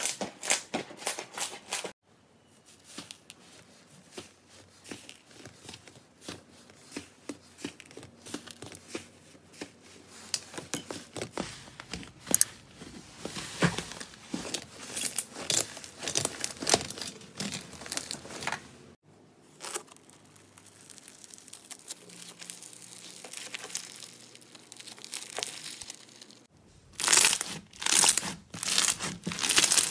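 Hands squeezing and kneading slime: sticky crackling and crinkling as the slime stretches and folds, quieter through the middle, then loud dense crunchy crackles near the end as a bead-studded slime is pressed.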